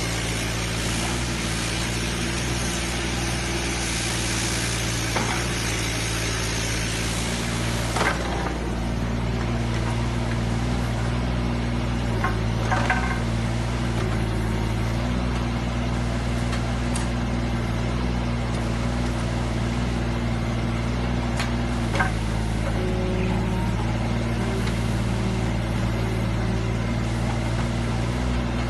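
Mini excavator's small diesel engine running steadily, with a hiss during the first several seconds and a few sharp metallic knocks.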